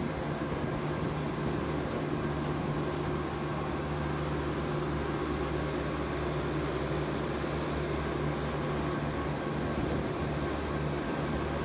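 David Brown tractor engine running at a steady pitch, a constant drone while on the move along the road.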